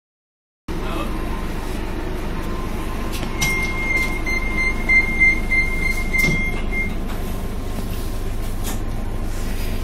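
Van Hool AG280 articulated bus heard from inside its trailer section: steady engine and cabin rumble. From about a third of the way in, a high steady electronic tone sounds for about three and a half seconds, with a short knock near its end.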